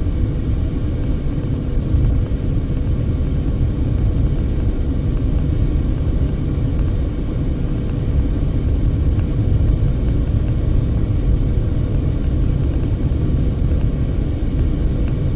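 Steady low road and engine rumble of a car moving at highway speed, heard from inside, with a faint steady hum over it.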